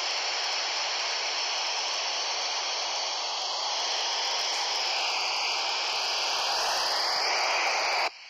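Kenwood dual-band handheld FM receiver on the ISS downlink frequency with its squelch open and no signal coming in: steady radio hiss. It drops out abruptly just before the end, as the carrier returns.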